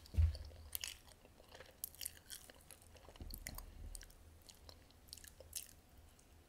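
Metal spoon cutting through the crisp baked meringue crust and soft custard of a brazo de mercedes: a soft thump just after the start, then scattered crisp crackles and crunches with light clicks of the spoon.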